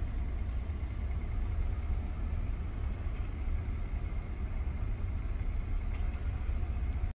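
A steady low rumble with a fainter hiss over it, cutting off suddenly near the end.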